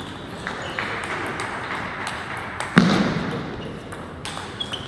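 Table tennis ball clicking off bats and table in a rally, a few sharp ticks spaced well under a second apart. Nearly three seconds in comes one louder knock with a low thud.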